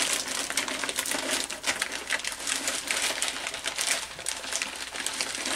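Small metal bolts clinking and rattling in a plastic bag as a hand rummages through it, the bag crinkling, in a dense, irregular run of small clicks.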